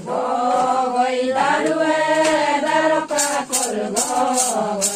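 A group of voices chanting a song together in unison, holding long notes. About three seconds in, a rhythmic rattle joins at about three strokes a second.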